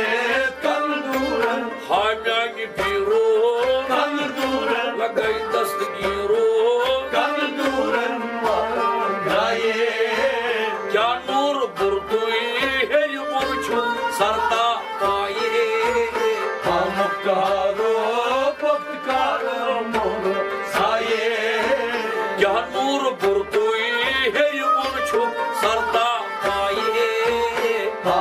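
Kashmiri Sufi song: a man singing with a melodic, bending voice over a tumbaknari (clay goblet drum) beaten in a steady rhythm of about two strokes a second, with a stringed instrument accompanying.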